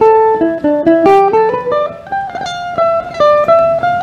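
Mandolin picking a quick single-note melody on its own, about five notes a second, dipping in pitch and then climbing back up. It is being played through the stage PA as the mandolin's turn in a band sound check.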